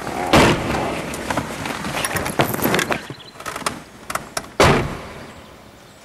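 Car doors being shut as people settle into a car: a thud about half a second in, then a louder door slam a little over four and a half seconds in, with rustling and small clicks in between.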